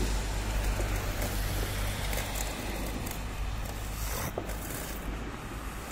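Steady city street traffic rumble, with a faint short click about four seconds in.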